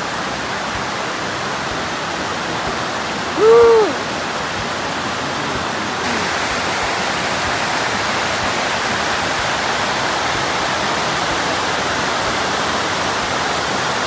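Fukiware Falls on the Katashina River: a steady rush of water pouring over a wide rock ledge, a little louder from about six seconds in. About three and a half seconds in, a short rising-and-falling vocal sound, like a brief 'ooh', rises above the water.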